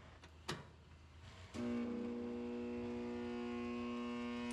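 A click about half a second in, then the Piranha P50 ironworker's three-phase motor switches on and gives a steady electrical hum instead of running up properly. It is bogging down on a dropped power leg, which is traced to a loose terminal lug.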